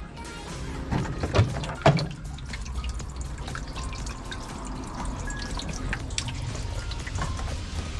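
Water dripping and splashing, with many small clicks and two louder knocks about one and a half and two seconds in, over a steady low hum.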